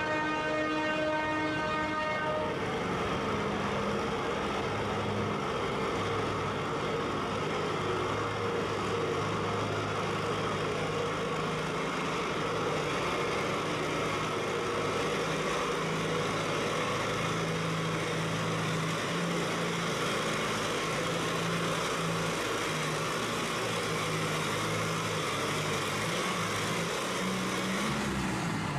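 A classic pulling tractor's engine runs hard under load through a pull, its note shifting and wavering as it goes. A steady horn sounds over it for the first two seconds.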